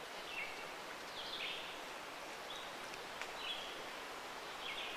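A wild bird singing short, high notes that step downward, repeated about once a second over faint outdoor hiss.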